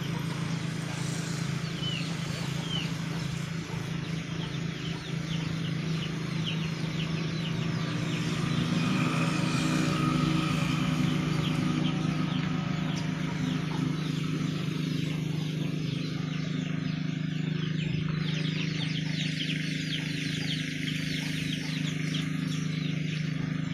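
Outdoor ambience: a steady low hum like a running motor, with many quick high chirps over it, thickest in the second half.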